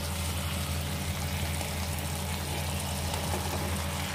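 Steady low hum with an even hiss underneath, unchanging throughout, with no clatter or stirring.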